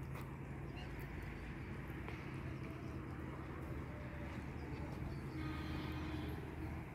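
Motorbike engine running steadily at low revs.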